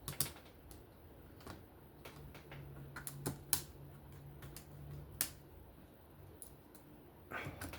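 Scattered small clicks and taps of metal knife parts and a small driver being handled while a folding knife is reassembled, with sharper clicks about a third of a second in, twice around three and a half seconds, and once past five seconds. A faint steady low hum sits underneath.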